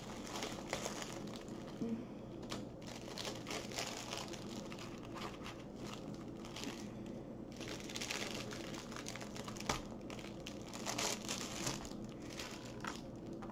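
Thin plastic packaging crinkling in irregular bursts as it is handled and folded.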